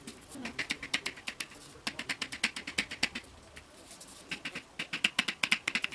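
Fingers rubbing and scratching the hard plastic shell of a Hatchimal toy egg in three bursts of quick strokes, about eight to ten a second, the rubbing that is meant to wake the toy.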